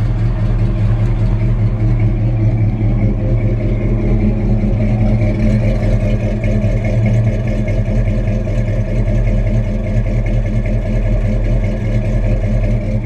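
1963 Chevy C30 truck's engine running steadily through Flowmaster mufflers. The intermittent clunk the owner suspected was a rod knock is not heard.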